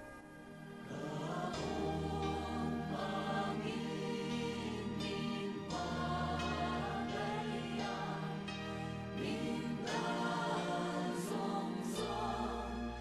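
Choir singing a gospel hymn over instrumental backing with a low bass, swelling in about a second in and going on in phrases.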